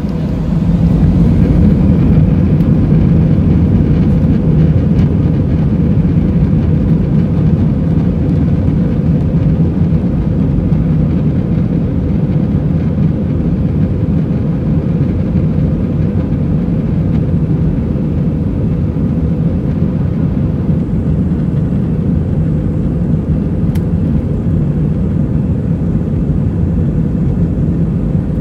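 Airliner cabin noise: a steady, loud low rumble of jet engines and airflow, heard from inside the cabin. It gets louder about a second in and then holds steady.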